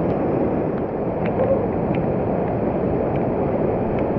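Monsoon stream rushing steadily down a rocky channel, a dense unbroken torrent of water over rocks, with a few faint ticks on top.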